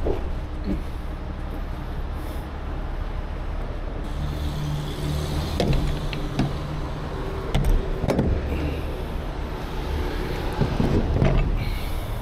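A truck engine idling steadily, with several sharp knocks and clunks on the metal of a box truck's body as someone climbs on it.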